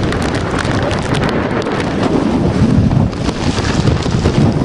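Hurricane storm wind buffeting the microphone in loud gusts, over heavy surf breaking on the shore.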